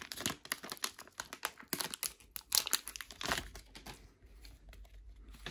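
Wrapper of a 1990-91 Skybox Series 2 basketball card pack crinkling and tearing as it is opened by hand: quick, irregular crackles that thin out about four seconds in.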